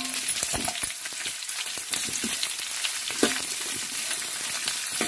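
Freshly chopped onions sizzling in hot oil tempering in a stainless steel kadai, sautéed on a low flame while a steel ladle stirs them. The ladle scrapes and clinks against the pan a few times.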